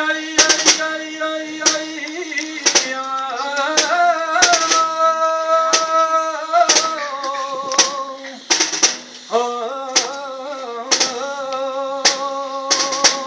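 A solo voice sings a saeta unaccompanied, with long held, wavering notes. The singing breaks off briefly about eight seconds in and then resumes. Sharp clicks sound now and then throughout.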